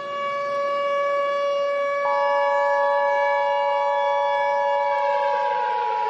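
Civil defense siren sounding at a steady pitch, joined about two seconds in by the Emergency Alert System's two-tone attention signal; near the end the siren starts to wind down, its pitch falling.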